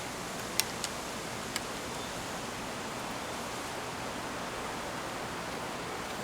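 Steady hiss of approaching rain, with three short sharp ticks in the first two seconds.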